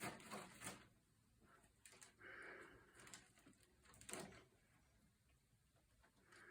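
Near silence: quiet room tone with a few faint rustles and soft clicks, the loudest right at the start and again about four seconds in.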